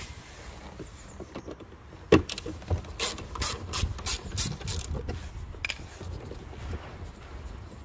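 Hand driver with a T25 Torx bit undoing a door-card bolt: a sharp knock about two seconds in, then a run of irregular mechanical clicks as the driver turns.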